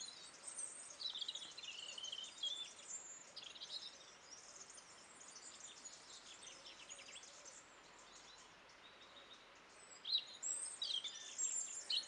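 European robin singing: faint, high, thin warbling phrases with short pauses between them, and a louder phrase near the end.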